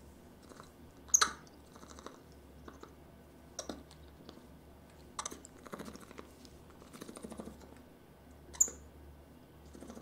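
Soft, scattered clicks and crunches of chewing, with two sharper short clicks, one about a second in and one near the end.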